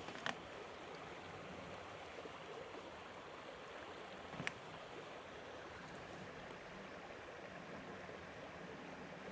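Steady rush of flowing stream water, with two short clicks, one just after the start and one about halfway through.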